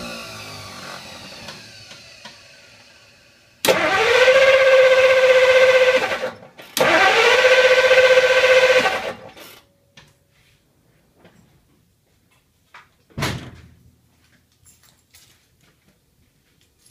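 A 1955 Studebaker Commander that won't start: the starter whirs twice, about two and a half seconds each time, rising quickly to a steady pitch without the engine catching. A single loud knock follows a few seconds later.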